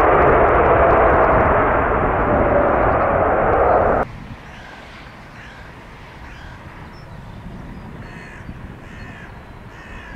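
Airbus A380's four jet engines running loud, with a steady whine over the rumble, cut off abruptly about four seconds in. After that comes quieter open-air background with a bird calling over and over, a short call roughly every half second to second.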